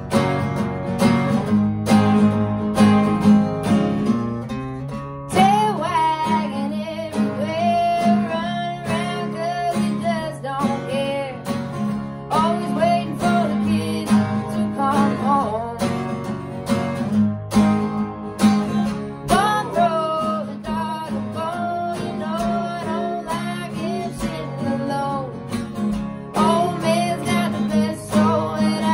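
Two acoustic guitars strummed together, with a woman's voice starting to sing about five seconds in.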